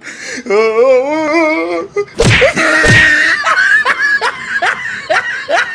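A human voice in a wavering, sing-song tone, then a brief harsh burst of noise about two seconds in, followed by a run of short laughs that each fall in pitch.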